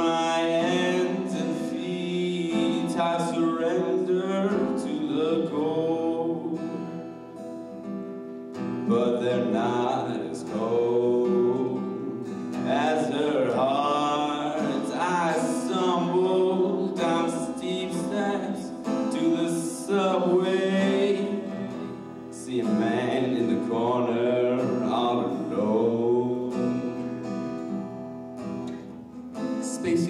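Live acoustic guitar strummed and picked, with a man's voice singing over it.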